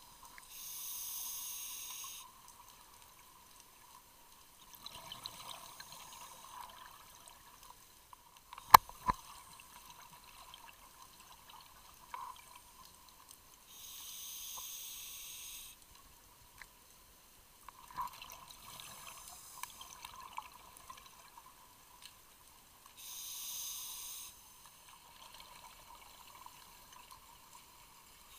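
Scuba diver breathing through a regulator underwater: three long hissing inhalations, each followed a few seconds later by a bubbling exhalation. A single sharp knock comes about nine seconds in.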